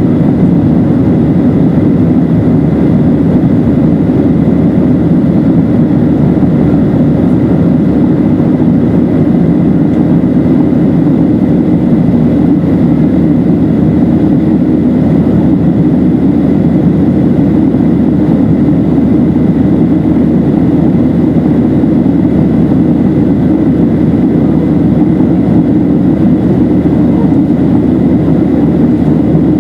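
Steady in-flight cabin noise of a Boeing 737-700: a loud, even rumble of its CFM56-7B engines and rushing air, with a faint steady high whine above it.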